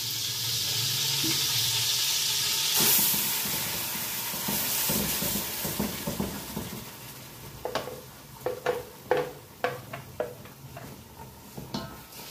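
Wet ground masala paste sizzling as it goes into hot oil in a metal pot, the sizzle loudest about three seconds in and dying down after. Then a ladle scrapes and knocks against the pot several times as the paste is stirred to fry it.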